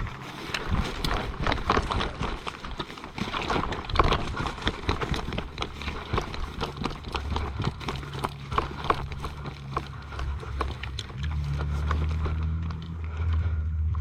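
Footsteps crunching irregularly over rough ground. From about eight seconds in a low steady engine hum joins, growing louder about eleven seconds in.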